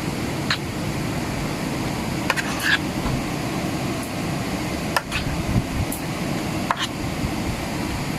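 A spoon or utensil clinking against a mixing bowl now and then while sliced shrimp is stirred into an egg and cornstarch batter, over a steady low background hum.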